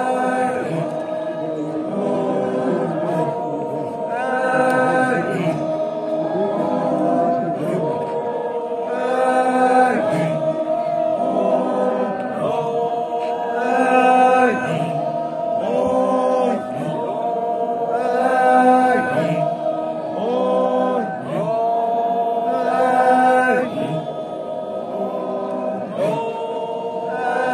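A group of men singing a traditional chant unaccompanied, many voices holding long notes together. The phrase swells and repeats every four to five seconds.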